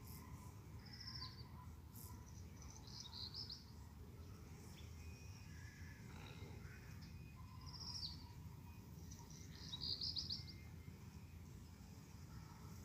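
Songbird singing faintly outdoors: short phrases of a falling note followed by a quick burst of chirps, repeated every few seconds over a steady low background rumble.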